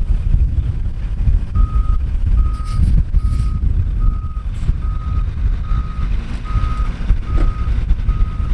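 A vehicle's reversing alarm beeps steadily, about one and a half beeps a second, starting about a second and a half in, over a heavy low rumble.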